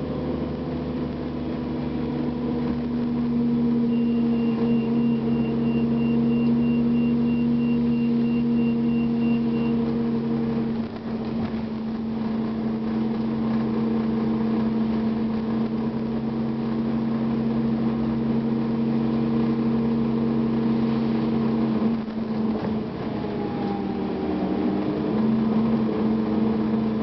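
Cummins ISL diesel engine of a 2009 Gillig Advantage transit bus running steadily as the bus drives. Its note breaks briefly twice, about eleven and twenty-two seconds in. A faint, rapid, high-pitched beeping sounds for about six seconds, starting about four seconds in.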